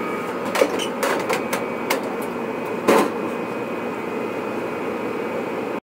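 Heil gas furnace running steadily with its newly replaced Fasco draft inducer blower motor: a steady hum with a faint whine, running quietly. A few knocks and bumps sound over it, the loudest about half a second and three seconds in, and the sound cuts off suddenly near the end.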